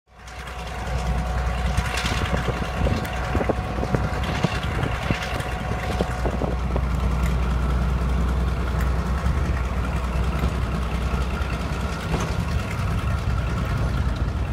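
Class 42 Warship diesel-hydraulic locomotive's twin Maybach diesel engines running with a steady low drone, fading in at the start, as the locomotive moves slowly away from the platform.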